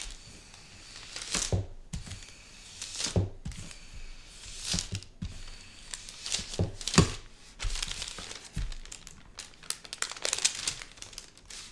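Baking paper crinkling and rustling as a wooden rolling pin is pushed over it and hands press it flat, in repeated strokes every second or two, spreading a sticky marshmallow mixture between the sheets.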